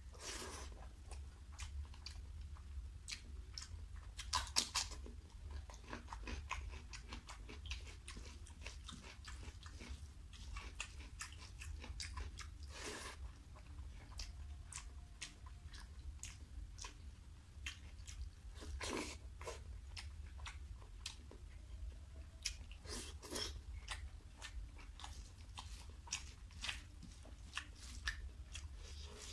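Close-miked wet chewing and mouth smacks of someone eating rice and curry by hand, with squelching as fingers mix rice and gravy on the plate. Irregular clicks and smacks, bunched in places, over a steady low hum.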